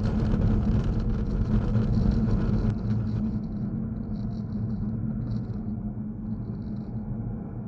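A car driving on a snow-covered road, heard from inside the cabin: a steady low drone of engine and tyre noise on Continental ExtremeContact DWS06 all-season tyres. About a third of the way in, the hiss abruptly drops away and the running noise becomes quieter.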